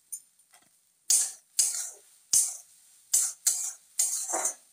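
Metal spoon scraping and stirring egg bhujiya in a metal kadhai: a run of short scrapes, about two a second, starting about a second in.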